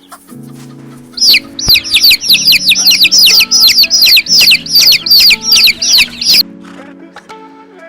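A bird calling in a rapid run of loud, high chirps, each falling sharply in pitch, about four a second, starting about a second in and stopping abruptly near the end, over background music.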